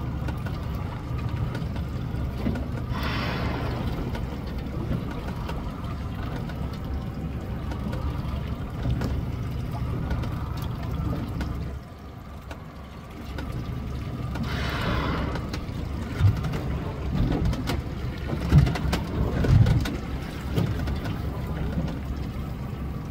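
A boat's engine idling with a steady low hum, which drops away briefly about twelve seconds in. Two short hissing rushes come at about three and fifteen seconds, and a few low thumps come later.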